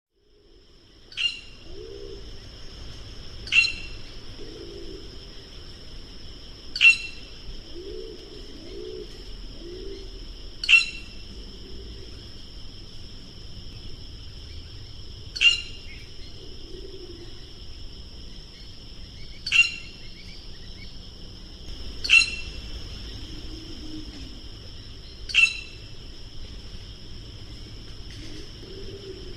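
Treepie giving short, sharp calls, eight in all, spaced a few seconds apart, over a steady high-pitched drone and faint low calls in the background.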